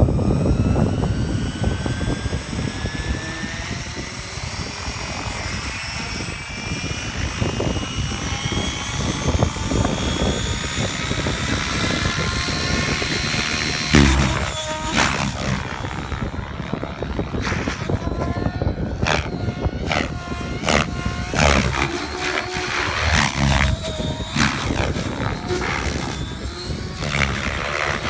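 Electric RC helicopter (JR Forza 700 with a Scorpion brushless motor) spooling up on the ground: a whine rising steadily in pitch for about the first half. Then, around lift-off, the rotor noise turns into repeated surges that swing up and down in pitch as the helicopter is flown hard.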